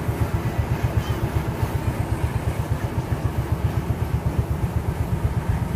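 Rice combine harvester's engine running steadily close by, with an even low throb of about five or six pulses a second.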